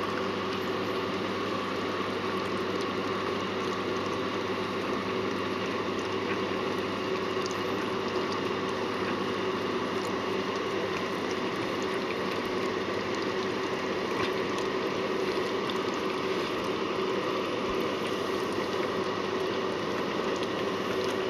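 Steady hiss with a faint hum, even and unchanging, with no distinct knocks or calls.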